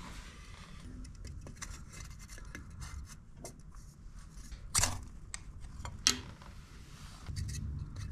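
Split wooden kindling sticks scraping and clacking as they are stacked inside a wood-burning stove, with two sharp, louder clicks about five and six seconds in.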